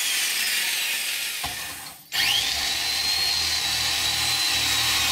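Vintage Black & Decker D500 electric drill running with a high motor whine. It winds down and stops about two seconds in, then starts again, the whine rising quickly, and runs steadily with its bit boring into a wood block.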